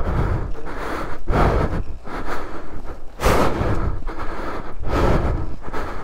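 Heavy breathing right against a helmet-mounted microphone, one breath about every second, with the loudest about halfway through. It is the breathing of exertion from pushing a heavy motorcycle on foot.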